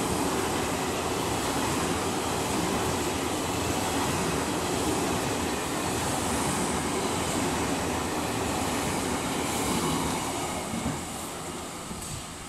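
JR Central 383 series limited-express electric train passing through the station at speed without stopping: a steady rush of wheels on rail and air. The noise fades about ten seconds in as the last cars go by.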